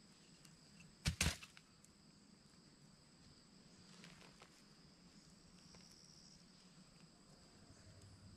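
Steady high-pitched chorus of insects in summer woodland, with a sharp double clack about a second in.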